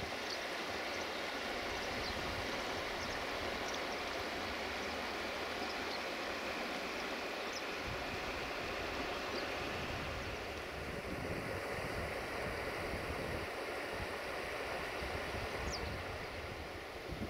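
Shallow river water rushing steadily over stones and gravel, with a few short high chirps heard above it.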